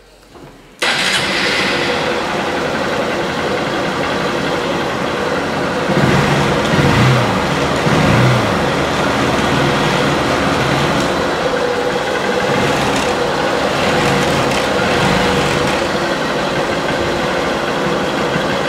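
2015 Honda CBF125's single-cylinder four-stroke engine starting up about a second in, then idling steadily. It picks up briefly twice around seven and eight seconds in.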